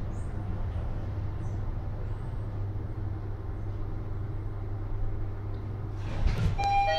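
1990s Nippon Otis elevator car riding upward, a steady low hum with rushing noise from the cab in motion. Near the end, a short clunk as the car arrives, then a steady arrival chime tone starts.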